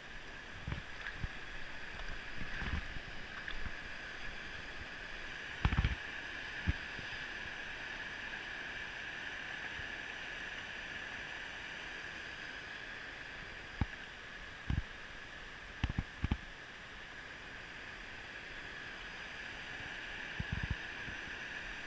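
River water running over a shallow rocky riffle, a steady rushing wash, broken by a few short thumps and splashes.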